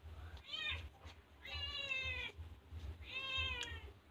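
A cat meowing three times: a short call, then two longer ones, each falling slightly in pitch.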